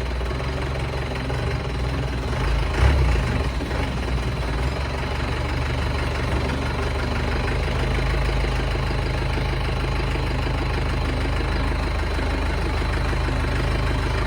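Vehicle engine running steadily, with a single louder knock about three seconds in.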